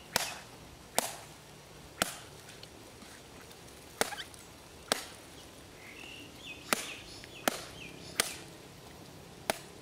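A young coconut being chopped open with a blade: about nine sharp chops, roughly one a second, slightly irregular.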